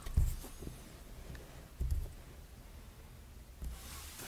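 Handling noise from a plastic compact 35mm film camera: two soft low thumps about a second and a half apart, with a few faint clicks after the first, as the camera is moved and set down on a table.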